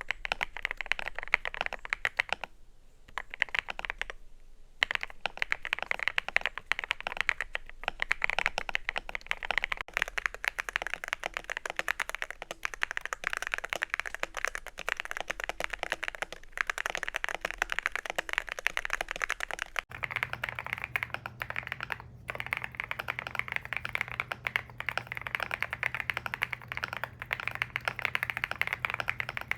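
Continuous fast typing on a YUNZII C75 mechanical keyboard: a dense run of keystroke clacks with short lulls about three and four seconds in. The spacebar is filled with jelly tape. About two-thirds of the way through, a steady low hum joins the typing.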